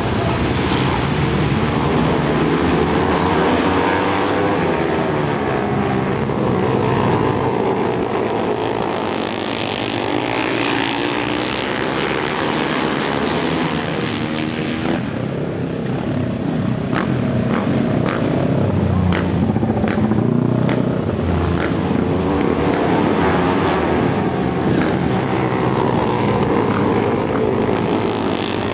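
Several racing motorcycle engines running hard as a pack laps the track, their pitch rising and falling with each throttle change through the corners. A run of short sharp pops stands out in the middle stretch.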